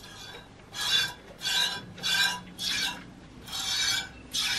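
Goat being milked by hand: squirts of milk hissing into a stainless steel bowl in a steady rhythm, a little under two a second, starting up after a short pause.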